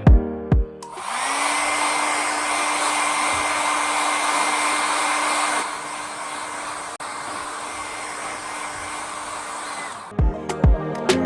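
Philips 1000-watt hair dryer running: a steady rush of air with a constant motor whine. It starts about a second in, gets quieter about halfway through, and switches off near the end.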